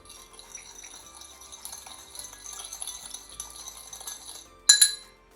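Sushi vinegar being poured from a small bowl into a glass bowl of cooked rice: a thin, steady, high trickling sound for about four and a half seconds. It stops, and then comes one sharp clink of the bowl near the end.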